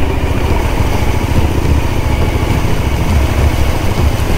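Suzuki adventure motorcycle's engine running steadily at low throttle while riding slowly through a shallow river ford, with the wheels churning and splashing the water.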